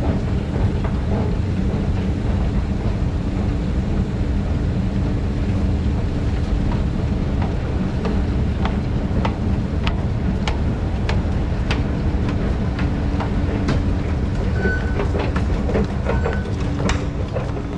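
Escalator machinery running: a steady low rumble with a constant hum, and scattered sharp clicks through the second half. Footsteps come in near the end as the escalator is stepped off.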